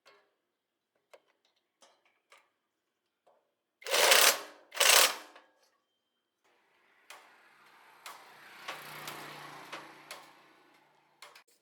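Scattered light clicks, then two loud short noisy bursts about four and five seconds in, followed by a small machine running with rapid fine ticking for about four seconds.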